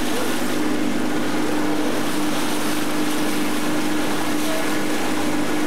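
Small boat's outboard motor running steadily, heard from aboard: a constant hum under a steady hiss of water and wind.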